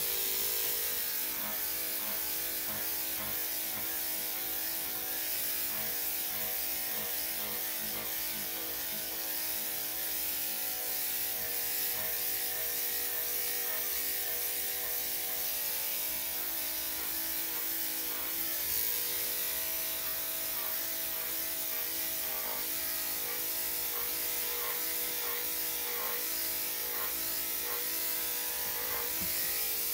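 Electric dog grooming clippers running steadily, a constant hum with a high hiss, as the blade is worked through a heavily matted coat.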